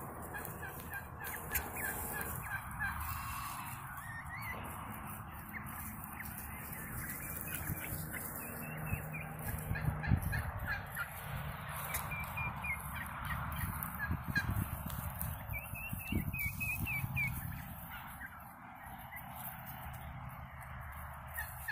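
Domestic tom turkey displaying, gobbling several times in short rapid rattling runs.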